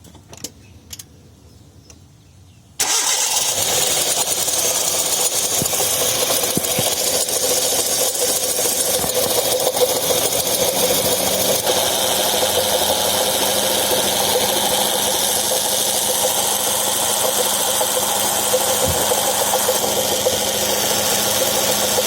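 A few light clicks, then about three seconds in a second-generation Hyundai Getz engine starts and runs with a steady, harsh abrasion noise from the air conditioner compressor. The noise is the sign of a failing compressor bearing rubbing as the pulley and belt turn.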